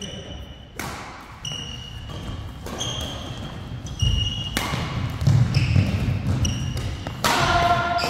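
Badminton rally in an echoing hall: a quick series of sharp racket strikes on the shuttlecock, about once a second, each followed by a brief high ring from the strings, with players' shoes thudding on the court between hits.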